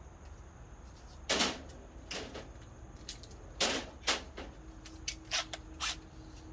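Hand tools clicking and clanking on metal fittings, about six short sharp knocks spread through a few seconds, while a 10 mm fastener is taken off the throttle body.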